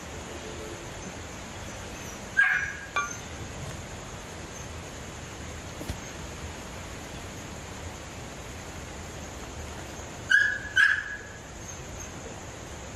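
A dog barking, two quick barks about two and a half seconds in and another two near the end, over a steady background hiss.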